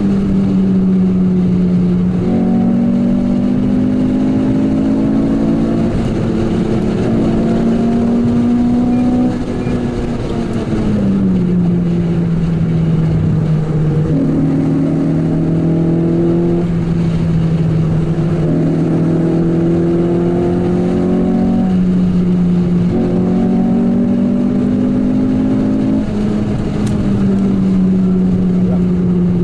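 Renault Clio 197 R27's 2.0-litre four-cylinder engine heard from inside the cabin while driving, a steady engine note that drops in pitch about ten seconds in and grows fuller and eases again several times as the throttle is worked, over road and tyre noise.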